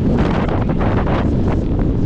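Wind buffeting the microphone: a loud, steady low rumble with irregular gusty rushes.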